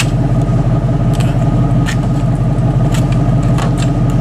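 Truck running, heard from inside the cab: a steady low engine and road drone, with a few light clicks and rattles.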